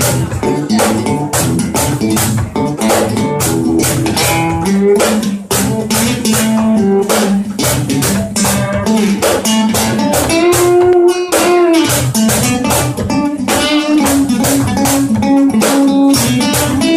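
Acoustic guitar strummed in a steady rhythm, an instrumental passage of a song.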